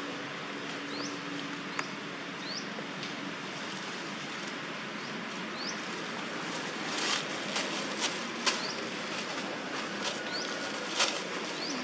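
Dry fallen leaves crackling and crunching under a macaque's feet as it walks through leaf litter, the sharpest crunches from about seven seconds in. A steady outdoor hiss runs underneath, with short high rising chirps every second or two.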